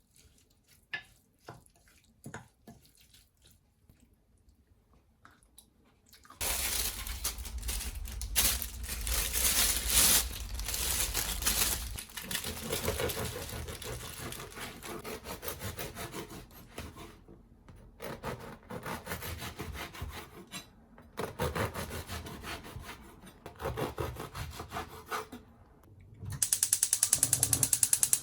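Water running from a tap into a sink, coming on about six seconds in after a few light clicks and knocks, and splashing unevenly as it runs. Near the end there is a fast, even buzzing rattle.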